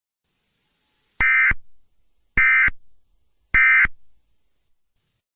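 Three short, identical bursts of EAS SAME digital data tones, about a second apart: the end-of-message signal that closes an Emergency Alert System broadcast.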